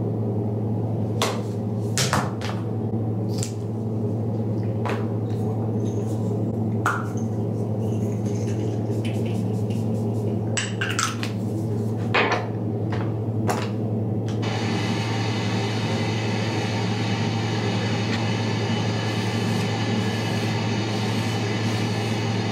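Steady low hum with scattered small clicks and taps of makeup containers being handled. About fourteen seconds in, background music comes in suddenly.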